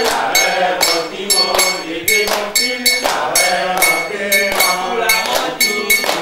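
Metal percussion struck in a steady rhythm, about two strikes a second, each ringing with a bright metallic clink. Voices chant or talk underneath.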